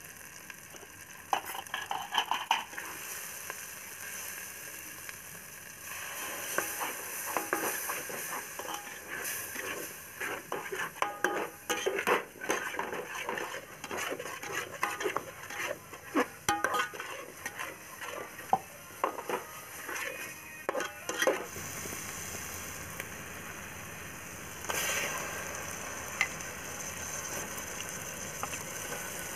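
A steel ladle stirs and scrapes a spiced masala paste around an aluminium pot, with a dense run of scraping and clinks through the middle, while the masala sizzles in hot oil. Near the end the sizzling grows louder as raw chicken pieces go into the pot.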